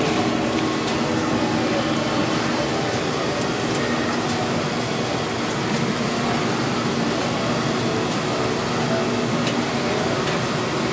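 Steady hum and rush of a kitchen ventilation fan, with a few faint clicks.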